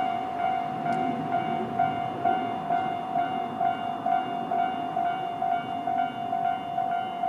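Japanese railway level-crossing electronic alarm ringing at its normal tone, a repeating ding of about two strokes a second from the bells on both sides of the crossing.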